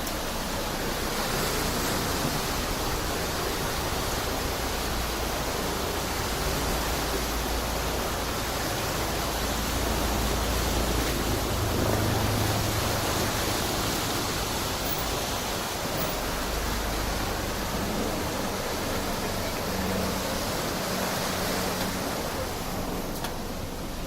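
Swollen floodwater rushing through a canal sluice gate: a loud, steady roar of water with a deep rumble underneath.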